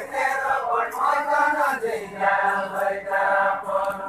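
Group of men singing a Deuda folk song together in a chanted unison, in long held phrases.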